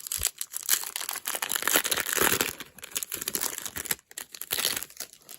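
Foil wrapper of a Pokémon booster pack being torn open and crinkled, a dense crackling that thins out about four seconds in.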